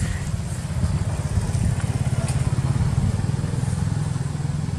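A small engine running: a steady low rumble with a fast, even pulse.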